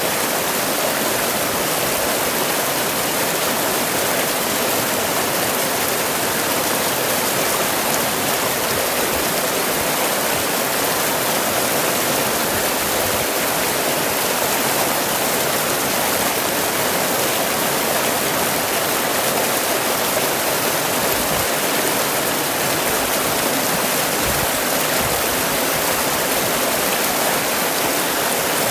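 Fast-flowing stream rushing and churning over rocks as white water, a steady, unbroken rush of water.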